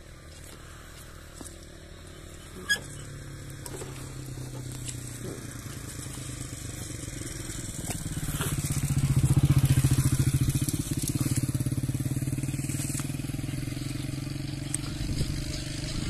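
A motorcycle engine running, growing louder from about three seconds in, loudest near the middle, then holding steady. A single sharp click about three seconds in.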